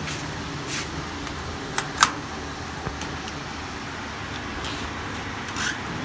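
Steady background noise with a few short sharp clicks and knocks, the loudest about two seconds in.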